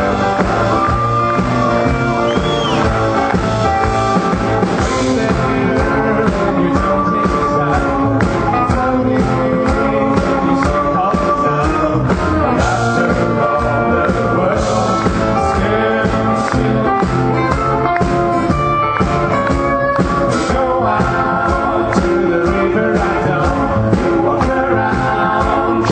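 A band playing a song live, with singing over the instruments and a steady rhythm that comes in about five seconds in.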